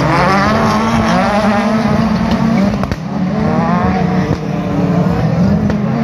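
Several rallycross Supercars racing past at high revs, their engines rising and falling in pitch through the gears, with a few sharp cracks.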